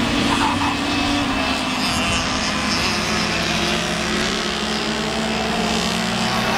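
Racing kart engines running at speed as several karts lap a circuit. It is a steady, buzzing engine drone whose pitch drifts slightly as the karts accelerate and lift through the corners.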